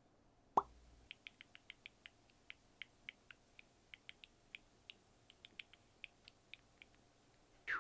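Smartphone texting sounds: a short falling 'bloop' of a message about half a second in, then an irregular string of quick, soft keyboard taps for about six seconds, and another falling message bloop near the end.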